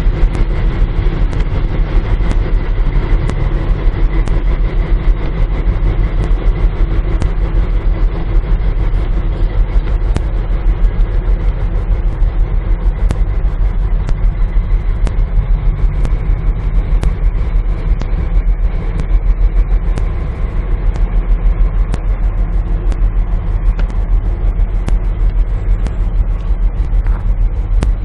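Diesel-electric locomotive engine (PKP class SU46) running with a fast, even throb as the locomotive moves slowly during shunting, with faint ticking over it.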